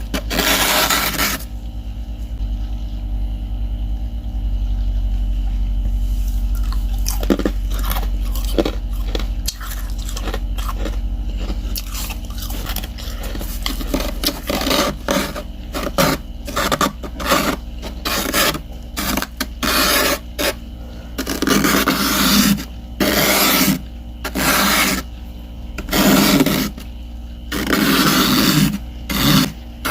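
Frost-coated ice chips scraping and crunching, first a steady rough grinding, then from about halfway a run of separate loud crunches roughly a second apart.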